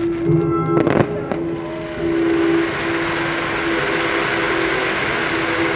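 Fountain fireworks going off: a few sharp bangs and crackles about a second in, then a dense steady hiss of spraying sparks. A held low musical tone runs underneath.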